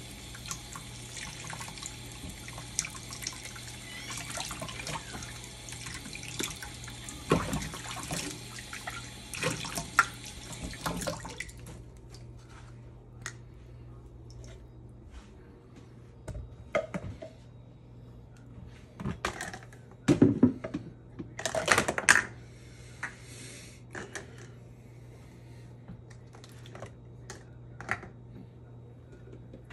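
Kitchen faucet running into a stainless steel sink while baby-bottle parts are rinsed under it; the water cuts off about a third of the way in. After that come scattered knocks and clicks of plastic bottle parts being handled and set onto a drying rack, loudest a little past the middle.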